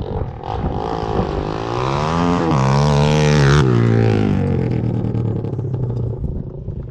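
ATV engine with an aftermarket exhaust revving once: the pitch climbs over a second or so, holds near its peak, then drops back and settles about three and a half seconds in.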